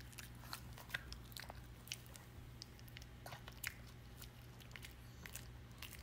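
Shih Tzu chewing a crunchy Hill's Prescription Diet c/d dog treat: a string of faint, irregular crunches and clicks, several a second.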